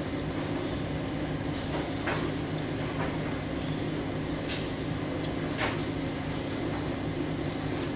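A steady low hum, with a few soft clicks from eating: gloved hands pulling apart and dipping fufu, and chewing.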